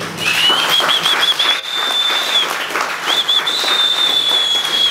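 Audience applauding at the end of a talk. Over the clapping, a high whistle sounds twice, each time starting with a few quick warbles and then held steady.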